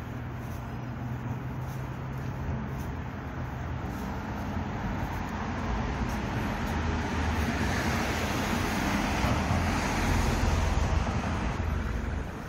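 Road traffic: a car approaching and passing on the street, its tyre and engine noise swelling over several seconds, loudest about ten seconds in, then falling away near the end.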